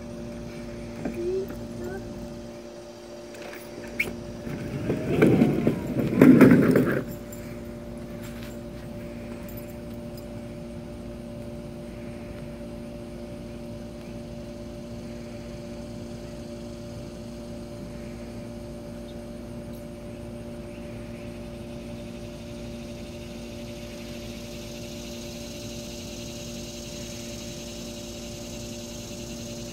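Plastic toy train car of a ride-on roller coaster rolling down its plastic track: a loud rumble lasting about two seconds, starting about five seconds in, over a steady hum.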